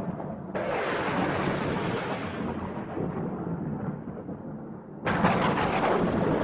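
Thunderstorm sound effect: two thunder crashes, one about half a second in and one about five seconds in, each starting suddenly and rumbling away slowly.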